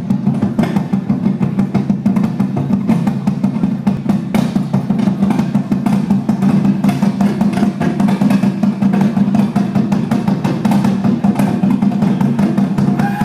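Native American dance drumming: a drum struck in a steady, even run of beats.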